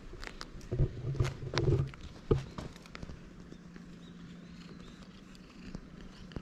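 A few sharp knocks and scuffs close to the ground-level action camera in the first two and a half seconds, then a quieter stretch with a faint steady low hum.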